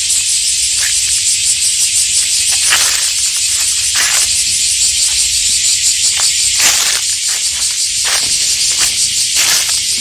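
Cicadas in a summer chorus: a steady, shrill high-pitched drone with no breaks.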